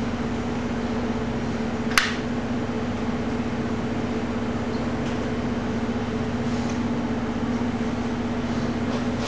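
A steady machine hum with a held low tone, such as a kitchen fan or appliance running, and a single sharp click about two seconds in.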